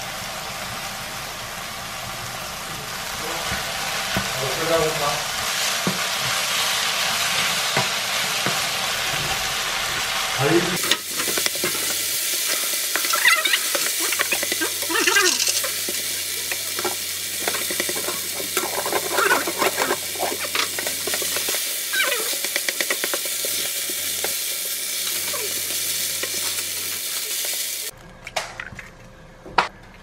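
Kimchi and onion sizzling in a nonstick frying pan while a wooden spatula stirs and scrapes through it; once the cooked rice is in, the frying goes on with repeated scraping strokes. The sizzle drops away near the end.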